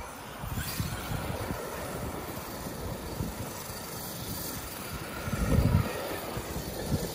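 Arrma Kraton 8S electric RC monster truck driving over dirt, its motor and tyres running steadily, with a louder low surge about five and a half seconds in.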